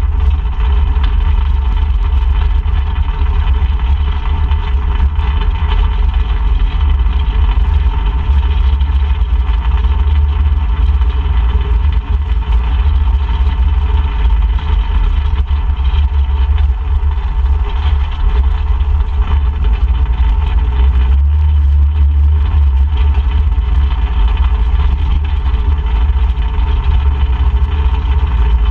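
ATV engine running steadily under a ride, with heavy low rumble from wind on the microphone.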